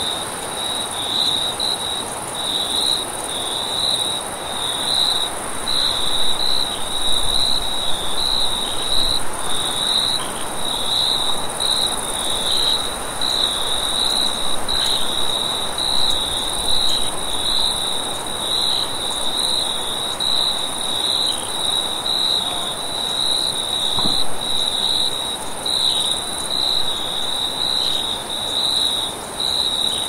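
Crickets chirping in a night chorus: short trills repeating about once a second, over a steady high-pitched hiss.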